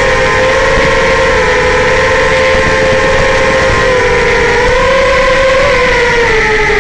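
Racing quadcopter's four brushless motors and three-blade propellers whining steadily in flight, the pitch sliding down and back up a little as the throttle changes about four to five seconds in.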